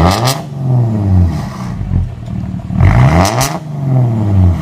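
Car engine sounding through an aftermarket racing exhaust, revved twice: each time the pitch climbs quickly and then falls back to idle over about a second. The second rev comes about three seconds in.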